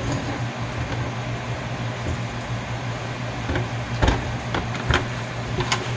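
Steady low hum of kitchen background noise with a few light knocks and clatters of containers while cornbread batter is being mixed, one near four seconds in, one near five and one near the end.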